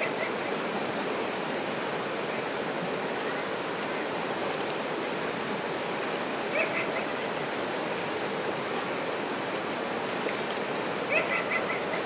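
River rapids rushing steadily over rocks. Short bursts of high chirping twice, about six and a half and eleven seconds in.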